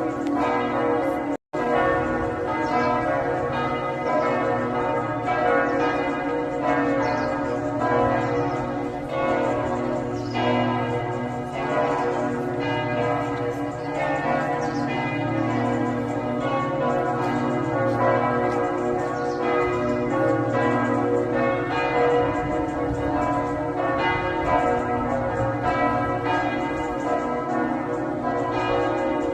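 Church bells of the Rosary Basilica at Lourdes ringing in a continuous peal, many strikes and overlapping ringing tones. The sound cuts out completely for a split second near the start.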